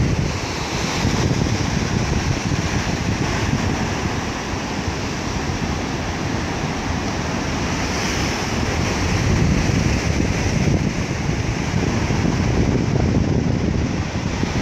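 Ocean surf breaking and washing over rocks below a cliff, swelling and easing, with wind buffeting the microphone.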